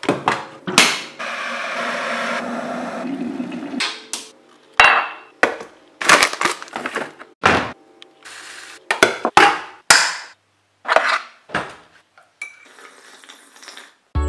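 Kitchen tea-making sounds: the lid of a stainless-steel electric kettle clicks open, then water runs steadily for about three seconds. A series of sharp clinks and knocks follows as the ceramic mug and kettle are handled, and a sip is slurped from the mug near the end.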